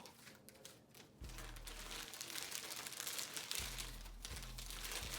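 Shipping packaging crinkling and rustling as it is torn open and handled by hand. It gets much louder and busier about a second in.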